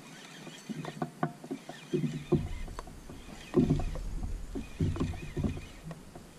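Handling noise in a fishing kayak: scattered small clicks and knocks from rod, line and hull, with several low thumps from about two seconds in.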